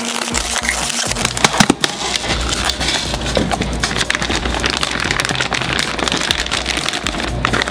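A styrofoam shipping cooler opened by hand, with a sharp snap about a second and a half in, then continuous crinkling and rustling of the plastic liner bag inside.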